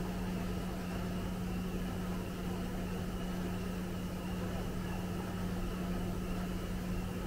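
Factory machinery running steadily: a constant low hum with an even hiss over it.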